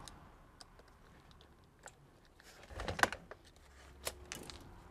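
Small metal parts of a reciprocating saw's blade clamp clicking and clacking as they are worked loose with a pick and handled. Light scattered ticks, then a short cluster of knocks with one sharp clack about three seconds in, and two more clicks a little after four seconds.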